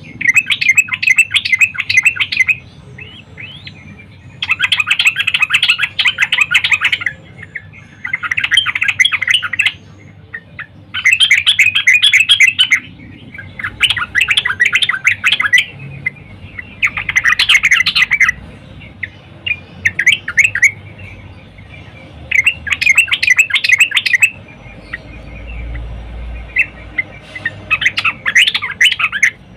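Female yellow-vented bulbul (trucukan) calling: about ten bursts of rapid, bubbly chattering notes, each a second or two long with short pauses between. It is the female call used to draw males into song.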